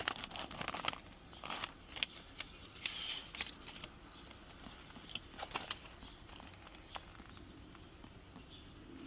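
Rustling and handling noise on a body-worn camera's microphone: scattered scrapes and clicks for the first few seconds, then a faint steady hiss.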